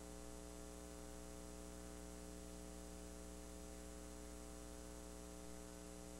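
Steady electrical mains hum with a faint hiss underneath, unchanging, on an otherwise silent TV audio track.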